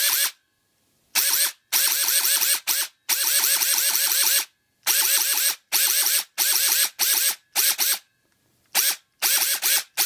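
A&K PTW clone airsoft rifle with an Etiny motor and ECU firing in burst mode, the trigger pulled quickly again and again: about a dozen strings of rapid shots of varying length with short pauses between them. It is loud and fast.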